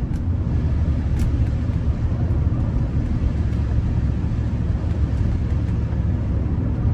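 Steady low rumble of a car driving, heard from inside the cabin, with tyre noise on a wet road.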